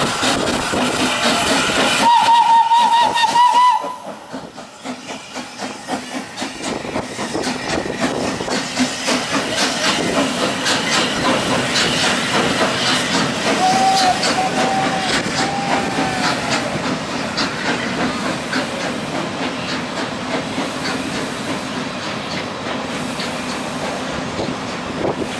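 Steam locomotive working a passenger train past, its exhaust beating and steam hissing. Its whistle blows about two seconds in and lasts nearly two seconds, and a fainter, wavering whistle comes around the middle. The coaches then roll by with wheels clicking over the rail joints.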